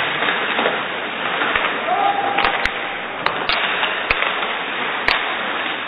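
Ice hockey play in a rink: a steady din of voices and rink noise, with about six sharp knocks of sticks, puck and boards between two and five seconds in.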